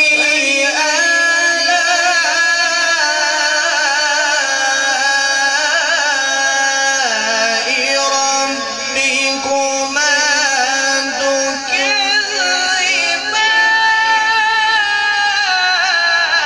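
A male Quran reciter chanting in melodic tajweed style, with long held notes that waver and shift in pitch through ornamented runs.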